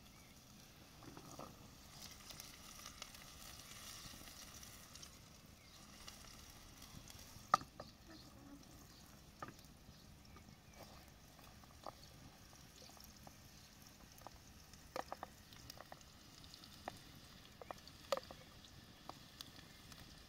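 Food frying in a pan over an open wood fire: a faint sizzle, strongest in the first few seconds, with scattered sharp clicks and crackles, the loudest about seven and a half seconds in.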